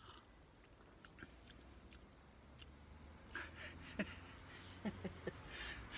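A man sipping and slurping hot coffee, starting about three seconds in: a few short slurps with swallows and brief throaty noises between them. Before that there are only faint small ticks.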